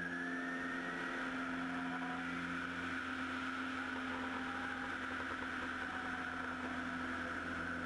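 Bellanca Super Decathlon's four-cylinder Lycoming engine and propeller running at flight power, heard from outside on the wing with the rush of air over the microphone. It is a steady drone whose pitch rises slightly about a second in, then eases down slowly.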